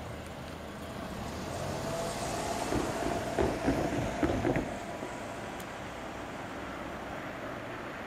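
Diesel engine of a rail-carrying track-maintenance motor car running as it moves along the track, with a faint whine. About three seconds in comes a quick run of sharp metallic clanks from its wheels on the rails.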